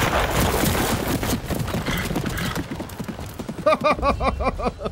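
Horse galloping, its hooves clattering, then a man's loud burst of laughter near the end.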